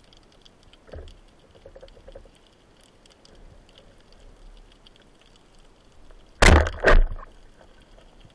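Underwater sound on a speargun-mounted camera: faint crackling ticks over a low hiss, then near the end two loud, short rushes of noise about half a second apart.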